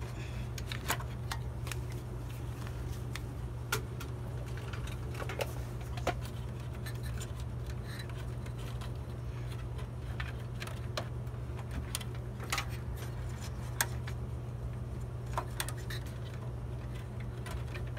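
Scattered small clicks, taps and rattles of hands working cables and connectors inside a desktop computer case, over a steady low hum.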